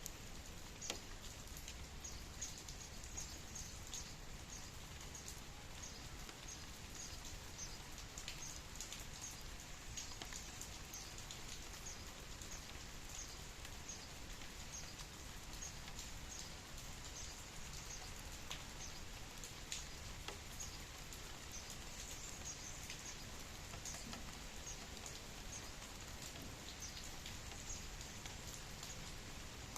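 Steady rain falling, with many scattered drops pattering on a surface.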